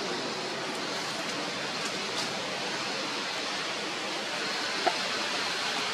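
Steady, even outdoor hiss of background noise, with one short sharp click about five seconds in.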